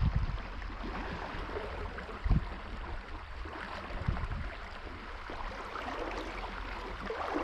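Steady rush of a small trout stream's flowing water, with a few low thumps, the loudest about two seconds in.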